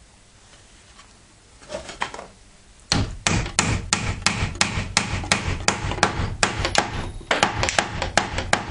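Wooden dowels being hammered into the joints of an ash door frame: a fast run of sharp knocks, about three or four a second, starting about three seconds in after a few faint handling knocks.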